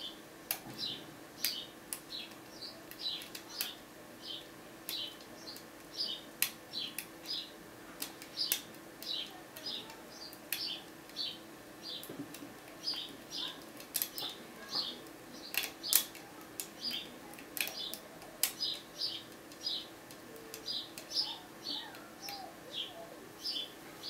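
A small bird chirping over and over, about two to three short high chirps a second, over a faint steady hum. Sharp clicks scattered among the chirps fit a steel hook pick ticking against the pins inside a brass pin-tumbler cylinder.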